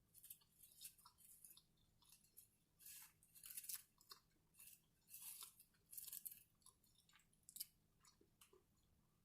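Close-miked chewing, an irregular run of short, crisp crunches that thins out near the end.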